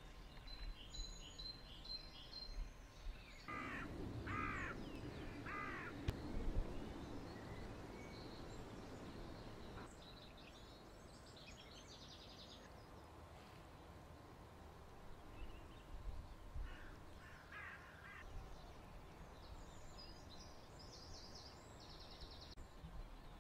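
Birds calling in open country: three loud calls in quick succession a few seconds in, a few more calls later, and high chirps of small birds at several points, over a low background rumble.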